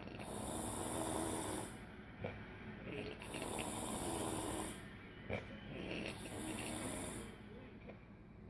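A woman snoring in her sleep: three long snores about three seconds apart, each with a high hiss, and small clicks between them.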